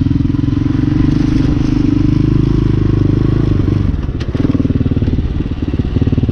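Hawk 250 dual-sport motorcycle's single-cylinder engine running as it is ridden, a dense, even firing beat. A little before four seconds in the engine note drops, with a brief click just after, then it carries on running.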